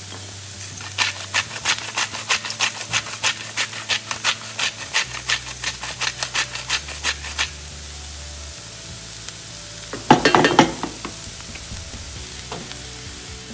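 Hand-held salt mill grinding coarse pink salt, a quick even run of crunchy clicks, about four a second, for about six seconds, over the low sizzle of onions frying in oil in a pan. A short clatter about ten seconds in.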